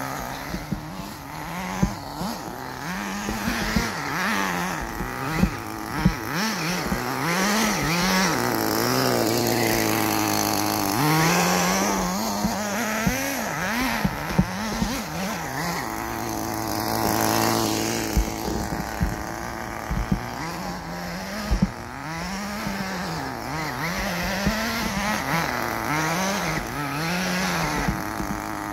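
Small nitro (glow-fuel) engine of a radio-controlled buggy, revving up and dropping back over and over as it is driven on dirt. There are two longer stretches of held high revs near the middle, and a few sharp knocks.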